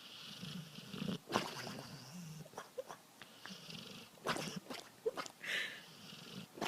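A pet animal snoring in irregular, rasping breaths. A few sharp clicks come about a second in and again after four seconds.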